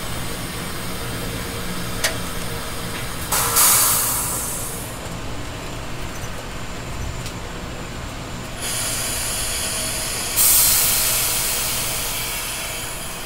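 Amtrak Keystone passenger train running, heard from the car's vestibule: a steady rumble of wheels on track. A loud hiss of air bursts out about three seconds in and again about ten seconds in, each fading away over a second or two.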